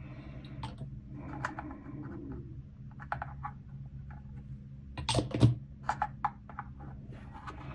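Small plastic kit parts and hobby tools clicking and tapping on a workbench as they are handled, with a cluster of louder clicks about five seconds in. A steady low hum runs underneath.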